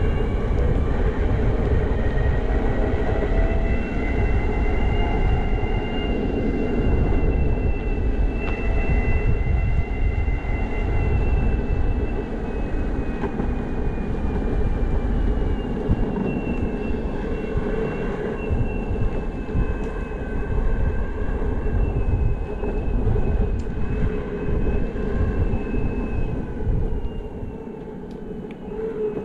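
Electric skateboard's belt-drive motors whining, the pitch drifting slowly with speed, over a steady low rumble of the wheels rolling on pavement and wind. The rumble eases for a moment near the end.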